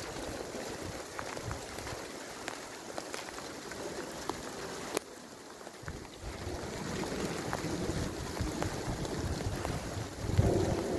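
Hail and rain falling on a wet street: a steady hiss dotted with sharp ticks of hailstones striking. Wind buffets the microphone with a low rumble, strongest near the end.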